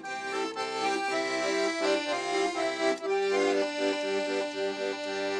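Paolo Soprani piano accordion playing a tune, several notes held together as the melody moves from note to note.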